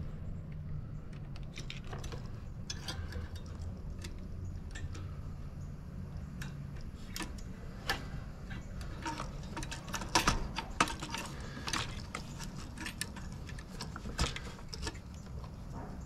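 Small metal and plastic parts clicking and clinking as a lawn mower carburetor is fitted back together by hand, the knocks coming thicker and louder in the second half, over a low steady hum.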